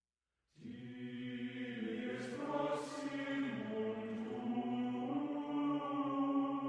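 Background music: wordless chanted vocals with long, steady held notes, starting abruptly about half a second in out of dead silence.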